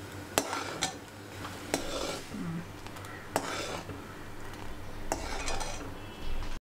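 A metal spoon stirring reducing milk in a stainless steel pan and scraping the cream layers to the sides, a soft swishing scrape with about five sharp clinks of spoon against pan.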